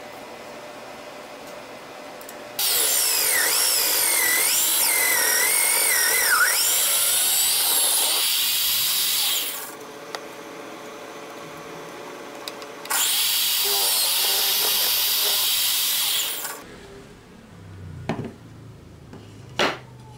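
Drill press boring into wood with a Forstner bit, in two runs of about seven and four seconds, its pitch wavering as the bit cuts. Near the end, two short knocks of wood on wood.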